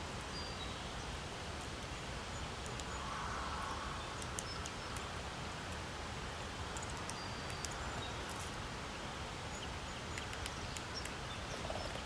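Steady outdoor background hiss, with faint short high-pitched bird chirps and ticks scattered through it.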